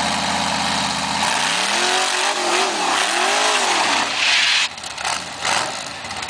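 Rock buggy's engine pulling under load climbing over boulders: steady at first, then revved up and back down twice, with a loud rushing noise that drops off suddenly about four and a half seconds in.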